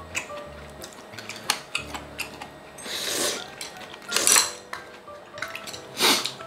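Cutlery clinking and tapping against dishes during a meal, with three louder noisy sounds of about half a second each, over quiet background music.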